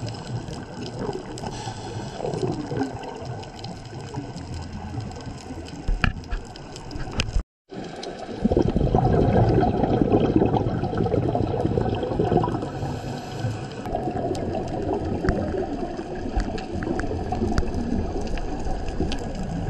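Muffled underwater rushing and rumbling of a scuba diver's exhaled regulator bubbles. The sound drops out briefly about a third of the way in and is louder after that.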